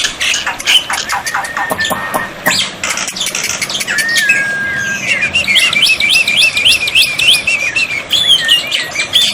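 Black-winged starling (jalak putih) calling in a busy mixed run: rapid clicking chatter, level held whistles, then a fast string of chirps from about five and a half seconds in.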